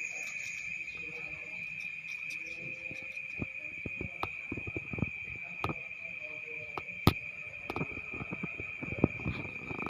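Steady high-pitched chirring of crickets or other night insects, with scattered clicks and knocks, the loudest about seven seconds in.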